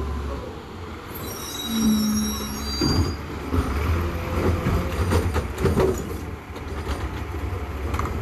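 Garbage truck running with a low engine drone. About a second in come thin high squeals, then from about three seconds a run of metallic clanks and bangs.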